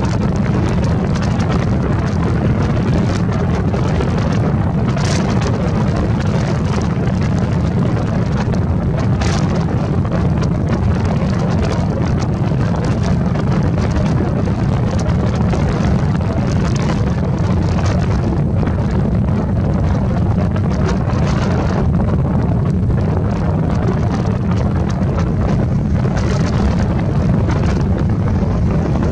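Steady low rumble of wind buffeting the microphone, mixed with the distant running of a C-17 Globemaster III's four turbofan jet engines as it taxis along the runway.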